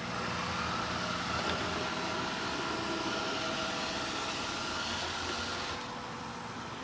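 Robot vacuum cleaner running: a steady motor whir with a high whine over a hiss, easing off a little near the end.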